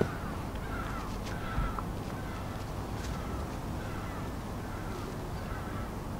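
Short, pitched animal calls repeating about once or twice a second, over a low steady rumble.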